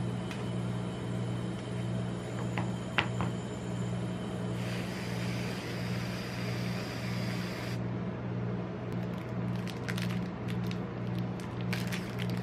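Aerosol can of whipped cream spraying a steady hiss for about three seconds, over a constant low hum. A few sharp taps come before it, and near the end a plastic candy-bar wrapper crinkles and crackles as it is torn open.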